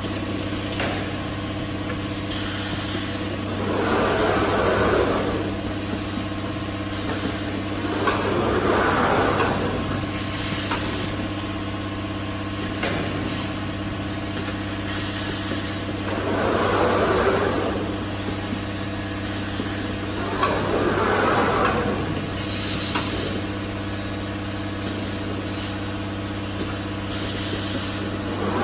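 Automated jug palletizer running: a steady low machine hum, with a louder swell of motion noise lasting about a second every few seconds as the gantry moves the gripper, and short air hisses from the pneumatic gripper in between.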